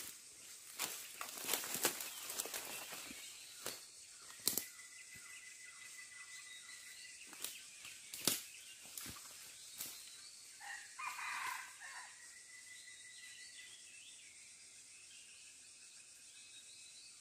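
Sharp crackles and rustles in dry leaf litter and twigs, coming thick for about ten seconds, with a brief louder rustle about eleven seconds in. Then only a steady high insect drone remains.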